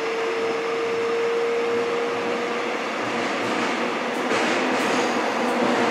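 Seoul subway train running between stations, heard from inside the car: a steady running noise with a held whine that fades out about halfway through, then the noise grows louder and brighter near the end.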